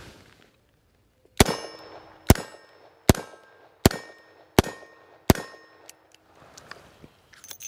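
Six shots from a SAR 38 revolver, evenly spaced about three-quarters of a second apart, each followed by a metallic ringing clang.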